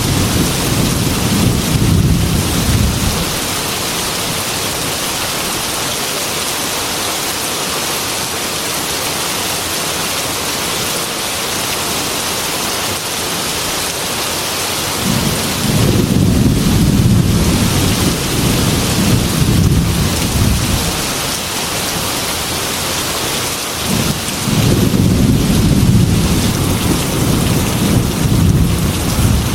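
Heavy rain pelting a glass window, a steady hiss, with long low rumbles of thunder at the start, again from about 15 to 21 seconds in, and once more from about 24 seconds to near the end.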